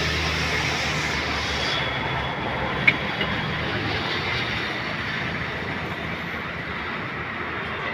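Steady rumbling noise of a moving vehicle, with one sharp click about three seconds in.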